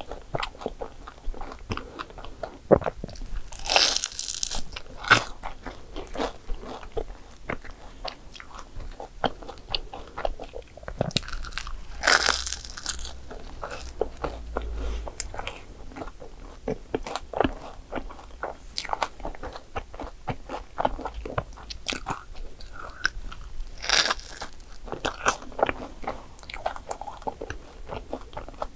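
Close-miked biting and chewing of crisp croffles (croissant waffles), the flaky pastry crackling between the teeth. Loud crunchy bites come about 4, 12 and 24 seconds in.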